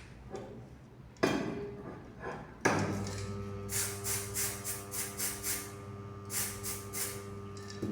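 Electromagnetic yoke for magnetic particle testing set down with knocks and switched on, then humming steadily as it magnetises the pipe gauge. Over it come short hissing sprays, about two a second, as magnetic particles are applied.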